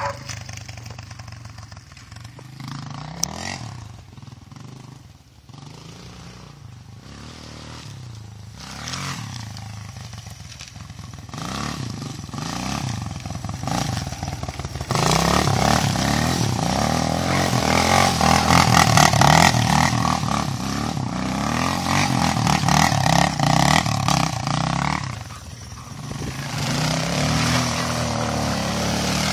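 Honda XR200R dirt bike's single-cylinder four-stroke engine, running lower and quieter for the first half, then revving up with the rear tyre spinning in snow. The revs drop briefly near the end and pick up again.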